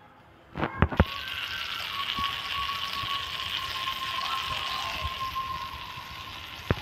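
Butter melting and sizzling on a hot nonstick tawa: a steady frying hiss that starts just after a couple of short clicks about a second in.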